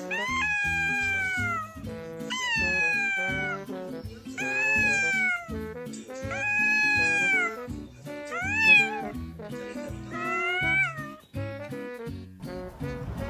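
A cat meowing six times, mostly long drawn-out meows falling in pitch at the end, with a shorter, sharper one near the end, over background music.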